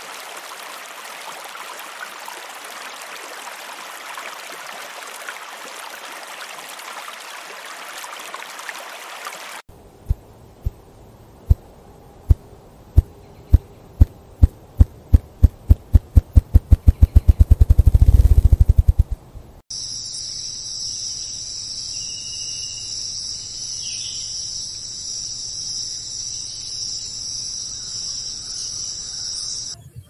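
A steady hiss runs for about the first ten seconds. Then low, loud thumps start about a second apart, speed up into a fast whirr and stop suddenly. From there a steady high insect buzz runs on.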